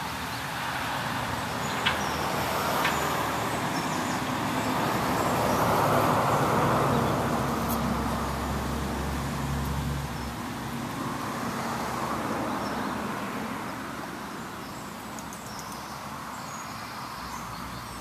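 Background road traffic: a vehicle passing, its noise swelling to a peak about six seconds in and fading, then a smaller swell a few seconds later. Two faint clicks sound about two and three seconds in.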